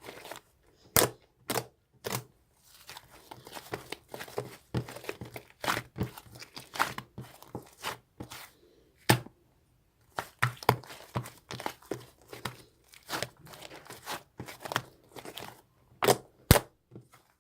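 Irregular crinkling, clicking and tapping as something, like plastic or paper, is handled close by, with short pauses between bursts.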